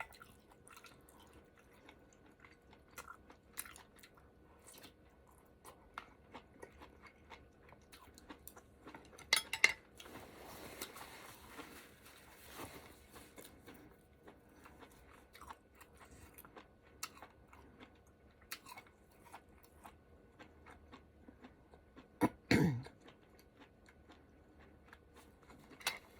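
A person chewing a mouthful of ramen hotpot close to the microphone: a steady run of small wet clicks and smacks, with two louder bursts of eating noise, about nine seconds in and about twenty-two seconds in.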